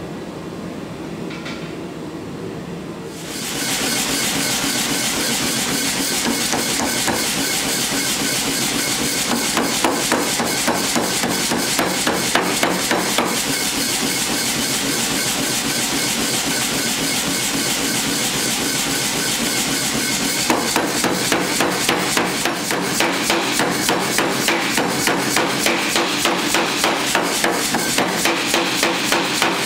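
A propane forge burner runs with a steady rush for about the first three seconds. Then a power hammer strikes red-hot steel on its dies in a fast, steady run of blows. About twenty seconds in, this gives way to louder, separate strikes, about three a second.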